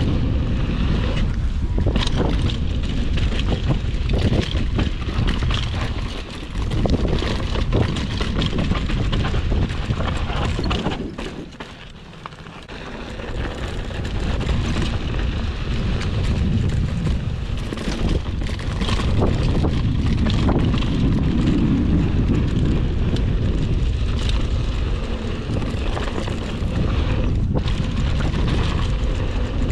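Wind buffeting the camera microphone on a fast mountain bike descent, with the tyres crunching over dry, rocky dirt and the bike rattling over bumps. The noise drops off briefly about twelve seconds in, then picks up again.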